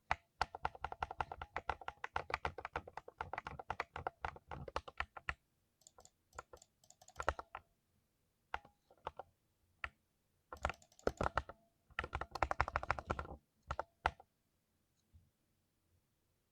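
Typing on a 60% mechanical keyboard with Silver Speed switches: a fast, steady run of keystrokes for about five seconds, then scattered single presses, then two more quick runs in the middle, with only a few isolated clacks near the end.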